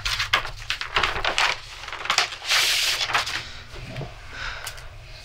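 Sheets of paper rustling and sliding as a stack of manuscript pages is handled and leafed through, with small clicks and taps and two longer rustles in the first three seconds.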